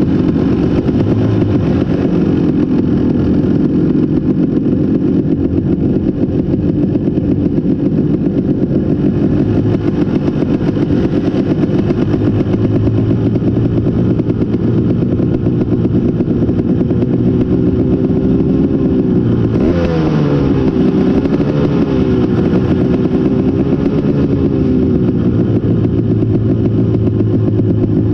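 KTM 250 SX two-stroke motocross engine being raced at high revs, its pitch wavering with the throttle. About twenty seconds in the revs drop sharply, then climb back up.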